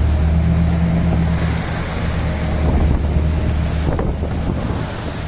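Sargo 31 motorboat's engine running under way with a steady low drone that weakens about four seconds in, while strong wind buffets the microphone and choppy waves wash against the hull.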